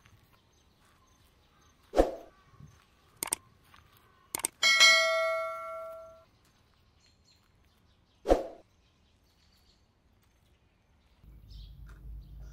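Subscribe-button animation sound effects: a soft pop, two clicks, then a bell ding that rings out for about a second and a half, and another pop.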